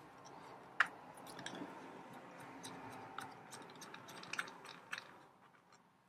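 Fingers unscrewing a 3D-printed plastic locking nut from a combination lock's central axle: faint rubbing and scraping with scattered small clicks, fading out about five seconds in.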